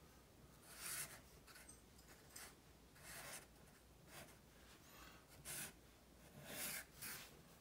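Black felt-tip permanent marker drawn across paper in a series of short, faint, scratchy strokes, about one a second.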